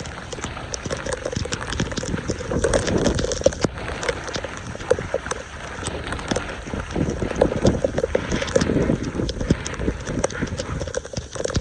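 Floodwater splashing and sloshing, with irregular knocks and scrapes, from debris being cleared by hand and tool at a clogged storm drain.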